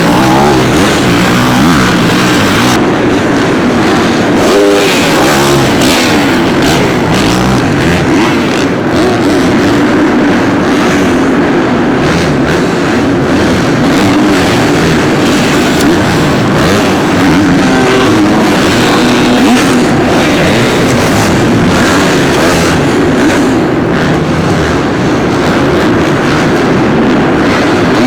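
Several four-stroke dirt bikes lapping a supercross track, their engines revving up and falling off the throttle in a continuous loud drone.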